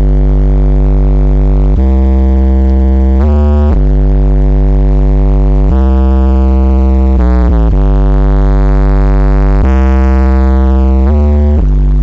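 Bass-heavy electronic music played loud through an Alpine car audio system and its SWR-1243D 12-inch subwoofer in a ported box. Long buzzing bass notes are held and change pitch every second or two, with quick sliding sweeps between some of them.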